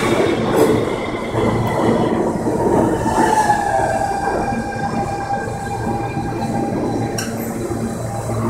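New York City Subway R160B Siemens train pulling into a station and slowing: a steady rumble of the cars on the rails with a low hum and a thin high whine that dips in pitch about three seconds in and then holds.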